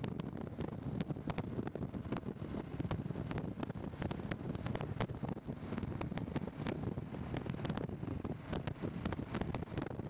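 Wind buffeting the microphone on a motorcycle at highway speed, with frequent crackling pops, over a steady low rumble of engine and road noise.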